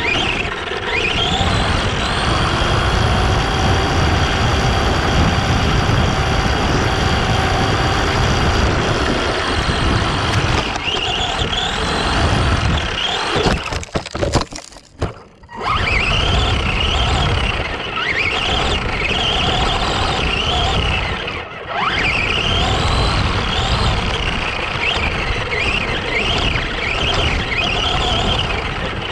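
Arrma Granite 4x4 RC truck driving: its electric motor whines, rising and falling in pitch with the throttle, over rough tyre and ground noise. The sound nearly drops out about halfway through, then comes back as a string of quick rising whines.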